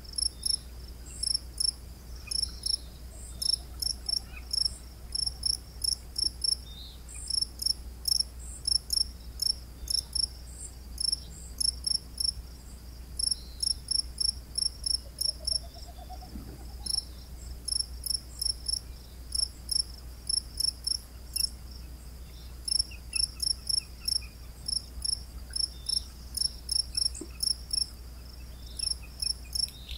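Cricket chirping steadily at dusk: high, clear chirps in quick runs of three to five, about four or five a second. A low steady hum runs underneath.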